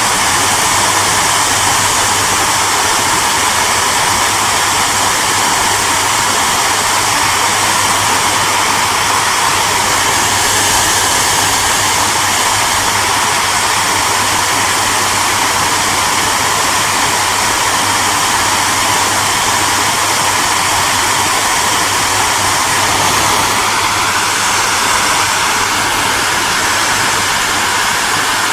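Hair dryer running steadily: an even rush of blown air over a constant low hum, with a faint whine that rises slightly in pitch near the end.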